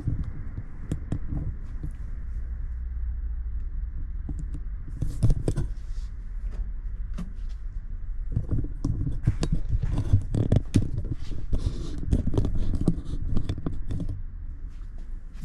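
Irregular knocks, taps and rustling of hands-on work on car body panels, over a steady low rumble. The knocks come thicker about halfway through, then thin out near the end.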